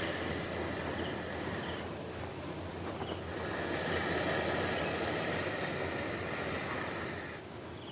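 Steady high-pitched drone of an insect chorus over a constant background hiss.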